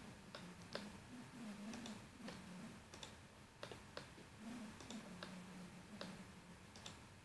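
Faint computer mouse clicks, a dozen or so at irregular intervals, as edges of a 3D model are selected one by one.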